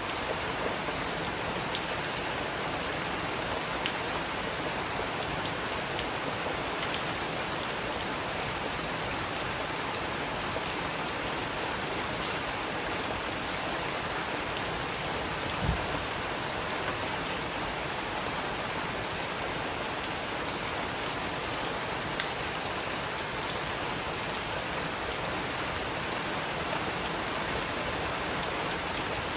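Steady rain with fireplace crackle: an even wash of rain, scattered sharp pops from burning wood, and one soft low thump about halfway through.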